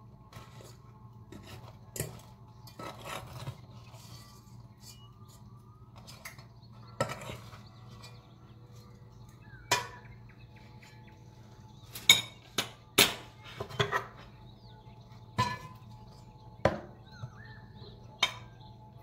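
A spoon scraping and knocking against a non-stick pot while cooked rice is stirred and scooped, in about a dozen irregular clinks with short scraping sounds between them; the loudest knocks come in a cluster about two-thirds of the way through. A faint steady low hum runs underneath.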